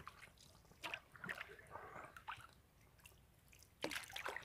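Faint small splashes and sloshing of seawater at the surface, a few separate splashes over a low hiss, the clearest one shortly before the end.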